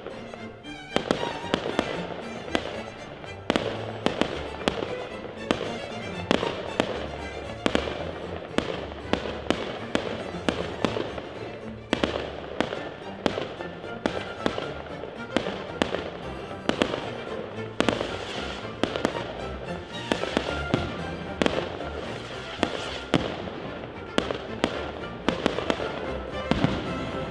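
Aerial fireworks going off: a rapid, irregular run of bangs and crackles, several reports a second, with music playing underneath.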